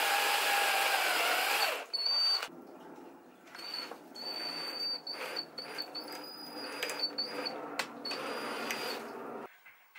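Power drill boring a twist bit through a thin piece of oak. The motor runs steadily at speed, then winds down about two seconds in. After that comes quieter, slower drilling with an intermittent high whine as the bit breaks through the back of the wood, stopping shortly before the end.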